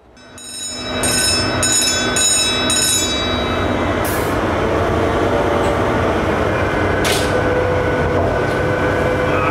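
Steady, loud drone of a beam trawler's engine and machinery heard inside the ship's accommodation, a dense rumble with a few steady tones over it. A few brief rattles sound in the first three seconds, and two short sharp noises about four and seven seconds in.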